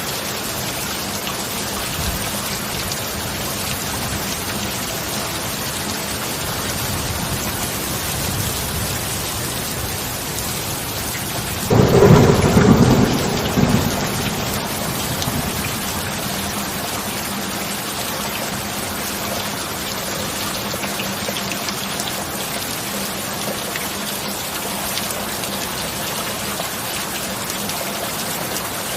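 Steady rain with thunder: a faint low rumble builds, then a loud clap of thunder breaks about twelve seconds in and rumbles away over the next two or three seconds.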